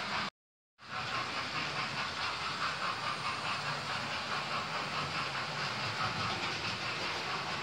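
Model railway trains running on the layout: a steady whirr and rattle of wheels on the track, with a brief silent gap just after the start.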